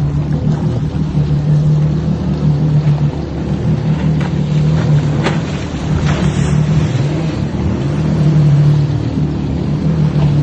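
An engine running steadily, a loud low drone, with a few faint clicks about halfway through.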